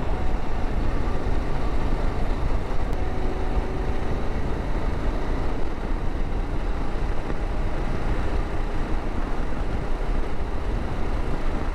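Motorcycle riding at a steady cruising speed: an even engine drone mixed with wind and road rumble.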